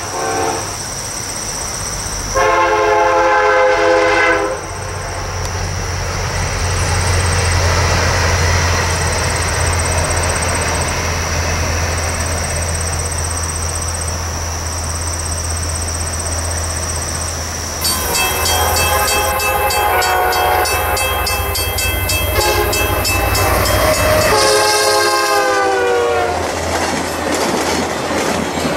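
VIA Rail passenger trains passing at speed. A diesel locomotive's air horn sounds for about two seconds, followed by the long rumble of the train going by. Later a second horn blast drops in pitch as the train passes, mixed with a rapid high ringing.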